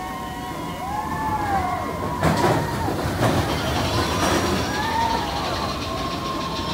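Big Thunder Mountain Railroad mine-train roller coaster running along its track, its cars rattling and clattering loudest about two to three seconds in, with riders' voices calling out.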